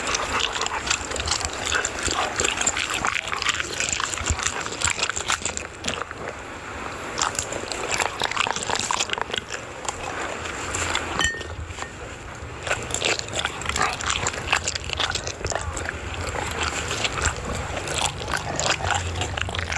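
Two dogs eating, a dense, irregular run of wet chewing and smacking clicks.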